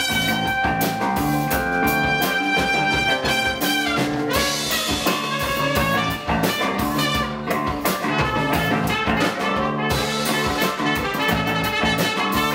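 Band music led by a trumpet, with a steady beat underneath.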